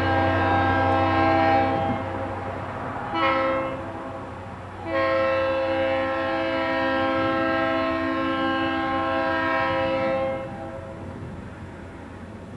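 Train's multi-note air horn blowing three blasts: a long one ending about two seconds in, a short one about three seconds in, and a long one of about five seconds that stops near ten seconds in. A low rumble of the train fades after about two seconds.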